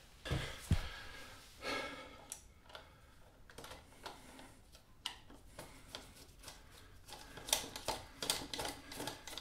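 Screwdriver turning the fixing screws of a plastic plug socket faceplate into its metal back box: small clicks, taps and scrapes of screw, metal and plastic. Two dull knocks come about half a second in, and a quick run of sharp clicks near the end.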